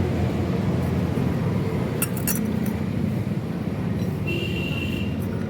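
A few sharp metallic clinks of tools and scooter parts during clutch-side reassembly, about two seconds in, with a short high ring near the end. These sit over a steady low rumble of background traffic.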